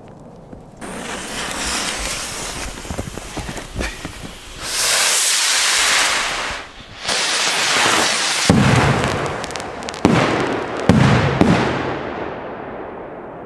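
Large firework rockets launching with a loud rushing hiss that swells and dips for several seconds. Then come about four sharp bangs as the rockets burst overhead, each with a rolling echo.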